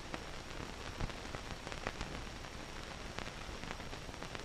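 Surface noise of an old film soundtrack: a steady hiss with a low hum, broken by irregular crackles and pops.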